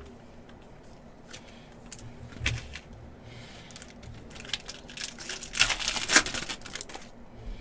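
A few light clicks of trading cards being handled, then a foil card pack torn open, its wrapper crinkling loudly as the cards are pulled out, most intense about six seconds in.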